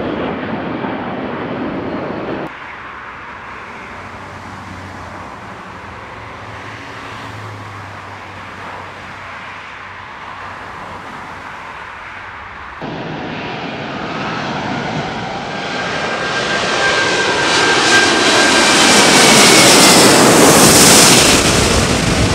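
Airbus A380 jet engines, in three cut-together passes: an A380 at takeoff power, then a quieter stretch as one flies over with its gear down, then, about thirteen seconds in, a British Airways A380 with Rolls-Royce Trent 900 engines on final approach passing low overhead. The last pass builds to the loudest point near the end, with a whine that slides slightly down in pitch as it goes over.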